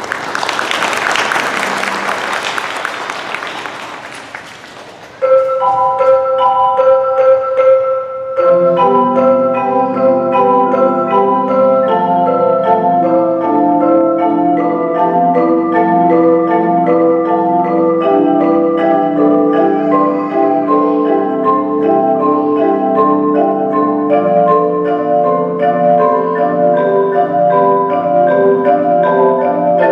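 A few seconds of applause die away. Then a mallet-keyboard ensemble of marimbas, xylophone, bells and vibraphone plays a four-mallet chord exercise: a few players start about five seconds in, and the whole group, with lower marimba notes, joins a few seconds later.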